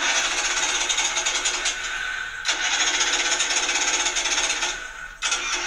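A car's starter solenoid clicking in a fast, steady chatter that breaks off briefly twice. This is typical of a bad starter solenoid, a bad starter or a dying battery.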